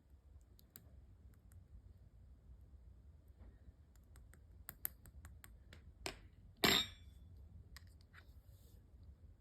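Mixed slime being pressed and stretched by hand, giving scattered small sticky clicks, with a short louder pop a little past halfway through.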